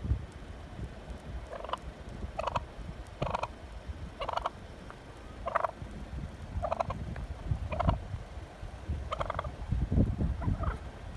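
Wild turkey calling over and over, short harsh honking calls about once a second, with a couple of quick rising chirps near the end, over a low rumbling noise.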